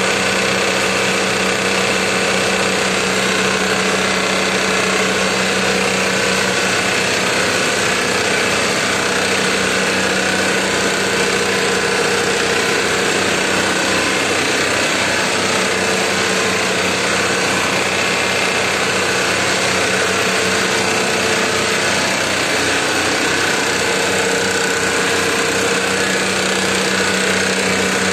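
Warp-knitting netting machine running at speed: a loud, steady, fast mechanical clatter over a constant hum.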